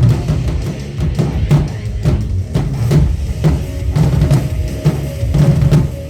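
Music with a steady drum-kit beat, bass drum and snare, about two strikes a second over a heavy bass line, with no singing.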